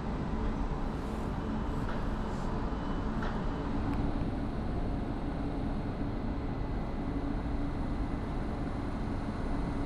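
ÖBB Class 4024 Talent electric multiple unit rolling slowly up to the platform and standing, with a steady electrical hum and a faint high whine. A few faint clicks come in the first few seconds.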